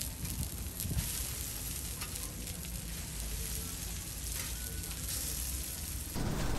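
Egg-battered pollack fillets sizzling in oil on a flat steel griddle, a steady frying hiss. A metal spatula scrapes and taps on the griddle, most sharply about a second in.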